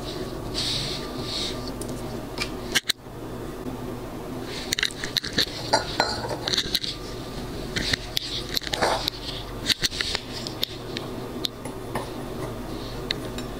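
Kitchen handling sounds: a frozen orange-slice ice block worked out of a silicone ice tray with soft rubbing, then a stemmed glass set down on a granite countertop and the ice placed in it, giving a scattering of light clicks and knocks.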